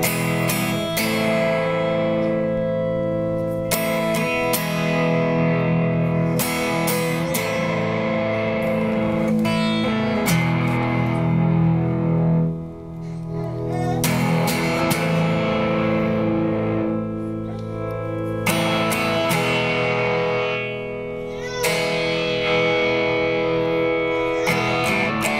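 Electric guitar chords run through Fairfield Circuitry effects pedals, struck every few seconds and left to ring, the sound of the effect changing as a pedal's knob is turned.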